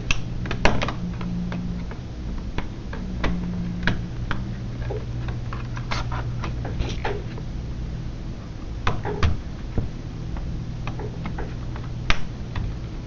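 Irregular plastic clicks and taps as a small screwdriver pushes in a laptop keyboard's retaining latches along its top edge, with a steady low hum underneath.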